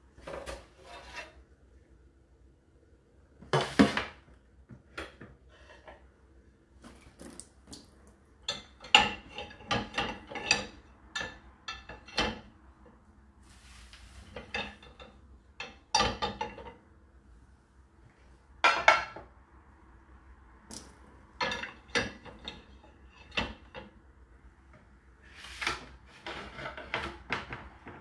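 Plates and bowls clattering and clinking as they are set into a dishwasher's wire rack: a string of irregular knocks and clinks, with the sharpest about 4, 9, 16 and 19 seconds in.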